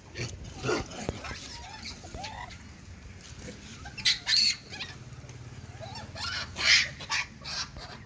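Monkeys calling in short, harsh bursts, with a few brief chirping calls between them, the loudest about four seconds in and again near the end.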